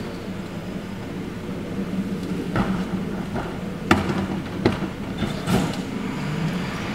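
Rear-loading garbage truck idling steadily while plastic wheeled trash carts are tipped and knocked against the hopper to empty them. Several sharp knocks, the sharpest just past the middle.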